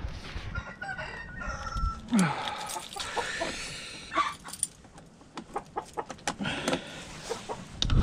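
Chickens clucking, with a rooster crowing once for about a second and a half, a couple of seconds in. Sharp metallic clicks from a small padlock and gate latch being worked by hand follow through the second half.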